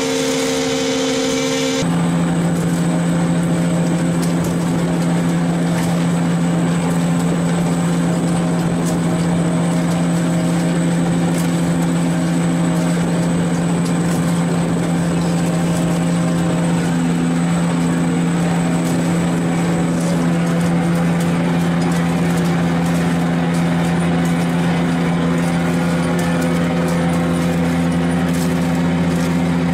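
Fishing boat's engine running steadily: a constant low drone that shifts slightly about two seconds in.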